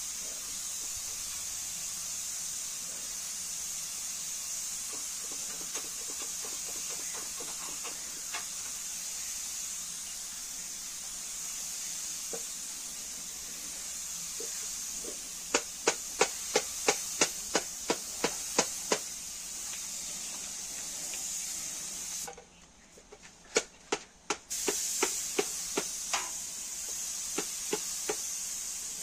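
Compressed-air paint spray gun hissing steadily as it sprays a car bonnet. The hiss stops for about two seconds roughly three quarters of the way through, then resumes. Over the middle comes a run of sharp clicks, about three or four a second, with a few more near the end.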